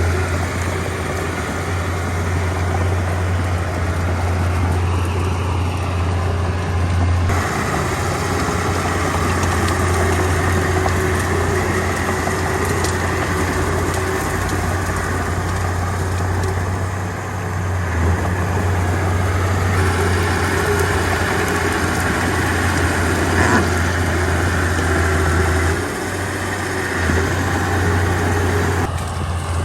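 Komatsu D31P bulldozer's diesel engine running steadily with a deep, low hum, its tone shifting abruptly a few times.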